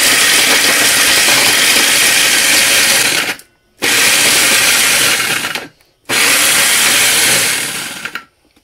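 Small electric food chopper with a single blade at the bottom, grinding broccoli, onion and garlic. It runs in pulses: it stops about three seconds in, then comes back in two shorter bursts of about two seconds each, the last one dying away.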